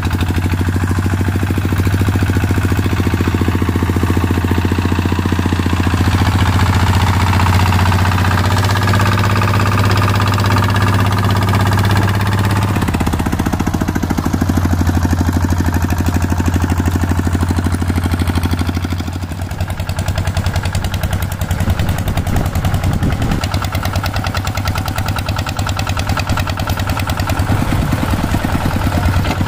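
Kubota two-wheel walking tractor's single-cylinder diesel engine chugging steadily under the load of a cassava trailer. Its note shifts briefly about 13 seconds in, and the sound dips slightly around 19 seconds.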